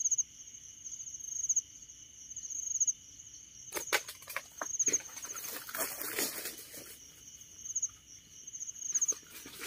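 Night insects trilling in steady pulses. About four seconds in there is a sharp snap, followed by a few seconds of rustling and crackling of leaves, with another couple of clicks near the end.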